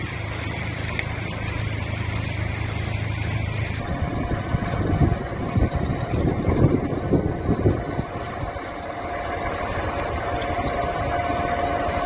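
A vehicle engine running steadily outdoors with a low hum and a few faint crackles. After a cut about four seconds in, an engine runs with a steady whine while gusts of wind buffet the microphone.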